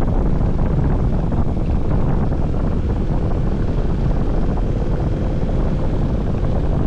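Motorcycle under way, with wind buffeting the microphone over the steady running of the KTM 1290's V-twin engine.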